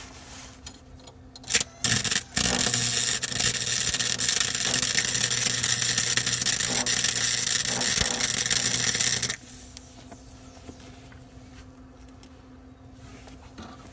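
Arc welder welding thin Chevrolet sheet steel: a couple of short crackling starts, then about seven seconds of steady, loud crackling hiss with a low hum, which stops abruptly.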